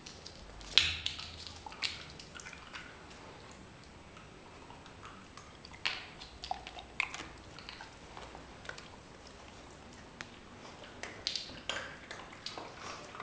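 Scattered wet smacks and clicks of a dog licking and chewing at a hand, with a sharp knock about a second in and a denser run of clicks near the end.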